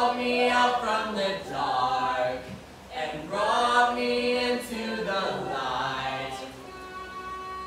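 A group of voices singing together, one of them through a microphone, in phrases with short breaks about two and a half and five seconds in. Near the end the singing drops away and a violin holds a steady note.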